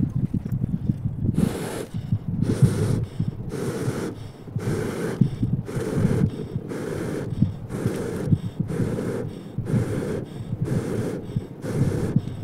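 Rhythmic puffs of air blown into the glowing coals of a barrel stove, starting about a second and a half in and coming a little under two a second, fanning the coals up toward flame.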